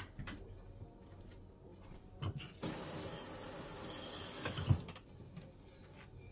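Kitchen tap running for about two seconds, filling a small stainless cup with water, starting and stopping abruptly. There is a knock just before the water starts and another as it stops.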